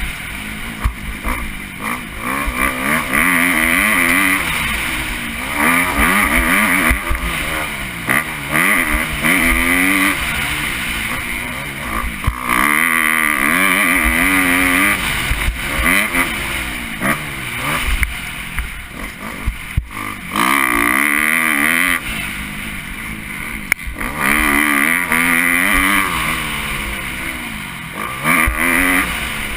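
A 2013 Kawasaki KX250F's four-stroke single-cylinder engine, heard from onboard while racing a motocross lap, revving up and dropping back again and again as the rider accelerates out of turns and backs off into them.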